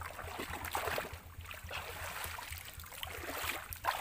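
Shallow stream water splashing and sloshing irregularly as a bamboo plunge-basket fish trap is worked by hand, with small knocks and splashes throughout and a louder splash near the end.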